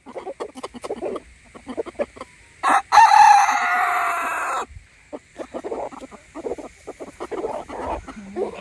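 A rooster crows once about three seconds in, a loud call of nearly two seconds that falls slightly in pitch. Around it, chickens give short clucks and make quick sharp pecking and tearing sounds as they feed on millet plants.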